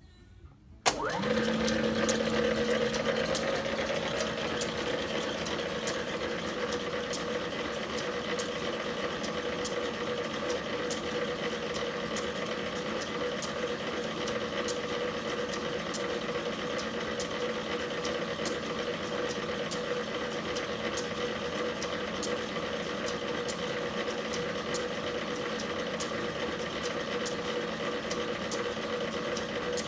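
Belt-driven vintage pillar drill and its 1926 three-phase electric motor switched on about a second in, quickly coming up to speed and then running steadily with a hum and a whine, over a regular light ticking.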